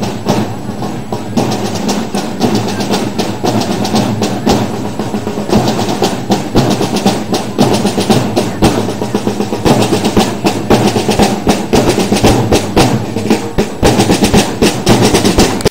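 Parade drum band playing: snare drums beating and rolling over bass drum strokes in a steady marching rhythm.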